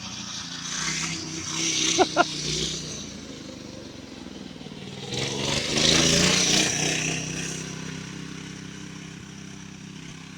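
Small single-cylinder mini bike engine running as the bike rides past, growing louder toward the middle and fading away again, with two short sharp sounds about two seconds in.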